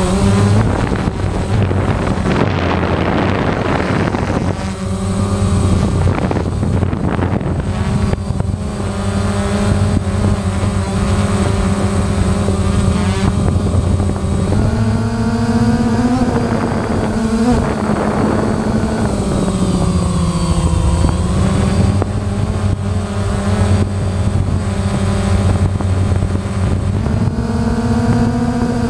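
DJI Phantom quadcopter's electric motors and propellers buzzing steadily, heard from the camera mounted on the drone as it climbs. The pitch dips and rises as the motors speed up and slow down, with rushing noise for a few seconds near the start and again around seven seconds in.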